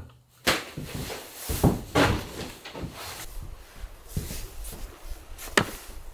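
Irregular knocks, thumps and footsteps on wooden boards as gear is handled and carried, with rustling between them and one sharp click near the end.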